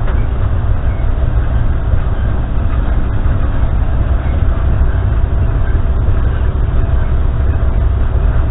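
Self-propelled grape harvester running steadily as it picks along the vine row: a loud, unbroken low drone from its engine and hydraulically driven picking head.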